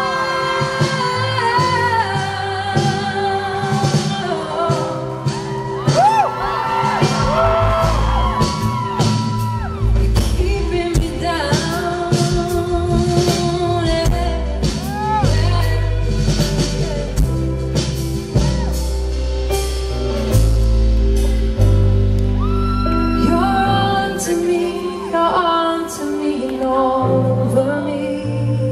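Woman singing a slow pop ballad at the piano, live, with long held notes sung with vibrato over low piano chords.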